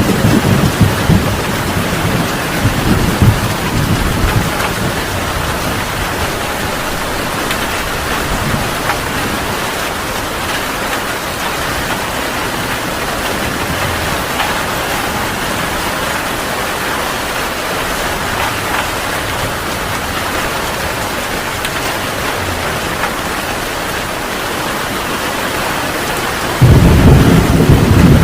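Heavy rain falling steadily, with thunder rumbling low at first and dying away within a few seconds. A loud rumble of thunder breaks in suddenly near the end.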